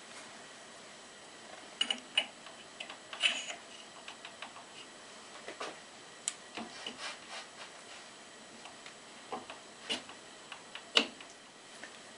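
Metal parts being handled inside an open lathe headstock: scattered light clicks, taps and rubbing of metal on metal, with a few sharper clinks about two, three and eleven seconds in.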